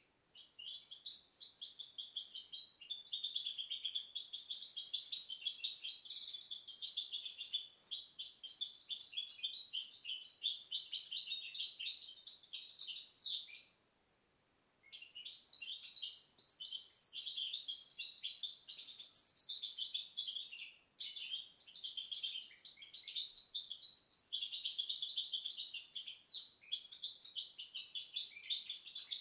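Goldfinch × canary hybrid (mixto) singing a long, fast, twittering song, breaking off once for about a second near the middle before carrying on.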